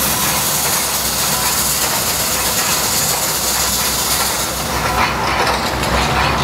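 Steam crane's engine working as it hoists a clamshell bucket: a continuous hiss of steam over a low mechanical rumble. The high hiss eases about four and a half seconds in.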